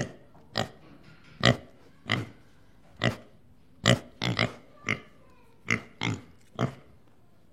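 Pig grunting in a series of short, sharp grunts, about one to two a second and unevenly spaced.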